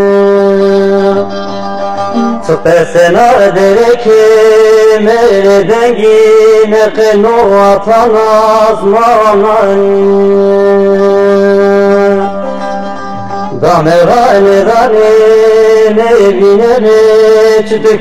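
Music: a held drone note under an ornamented, wavering melody line. The melody comes in about two and a half seconds in, drops out around twelve seconds, and returns a second and a half later.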